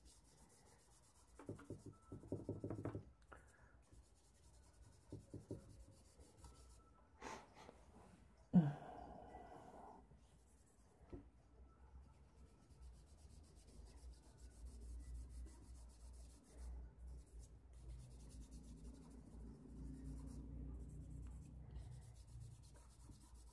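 Fingers rubbing and smudging charcoal across drawing paper to blend a background tone: a faint, soft rubbing, with one brief louder bump about a third of the way in.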